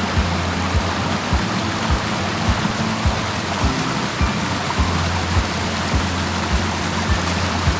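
Rushing mountain stream, with background music over it carrying a steady low beat of about two thumps a second.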